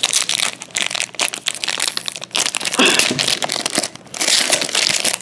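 Foil hockey card pack wrapper crinkling in repeated bursts as it is worked open by hand.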